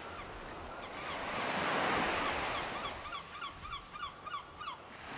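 Ocean surf washing in, one wave swelling and breaking about two seconds in. Over it comes a rapid string of short, repeated bird calls that stops near the end.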